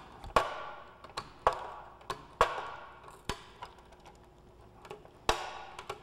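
Hand nibbler shearing thin aluminium aircraft skin: a sharp metallic snap with each squeeze of the handles as the punch bites out a small chunk. There are five snaps about a second apart, with a longer pause before the last, each ringing briefly, and lighter clicks between.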